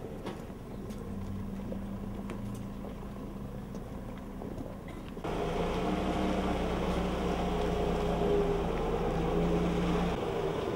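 Pickup truck engine running at low speed, a steady low hum, with crowd noise around it. The sound jumps suddenly louder about five seconds in.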